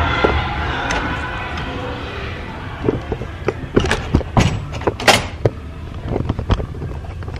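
Music fading away over the first couple of seconds. Then a low rumble with scattered clicks and knocks from a handheld phone being carried at a walk.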